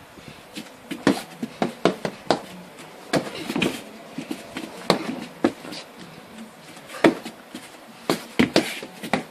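Punches and kicks landing on a padded kick shield: about a dozen sharp slaps in irregular combos, with a quick flurry of strikes near the end.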